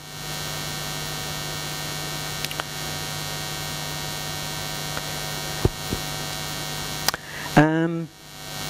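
Steady electrical mains hum with hiss, and a few faint clicks. A brief voice cuts in near the end.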